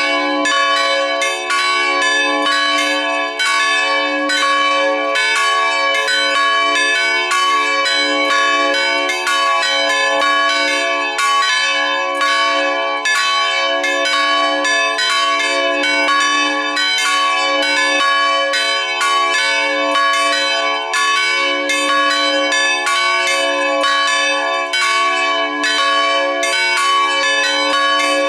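Three bronze church bells cast in 2004 by the Felczyński foundry in Taciszów ringing together in full peal, swung so their strokes follow one another steadily and overlap, each stroke's tone ringing on under the next, without a break.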